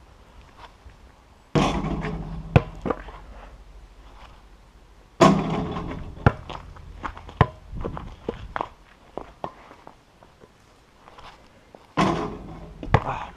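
A basketball being shot at a backyard hoop, with three loud thunks as it hits the backboard and rim. Each thunk is followed by sharper knocks as the ball bounces on the ground.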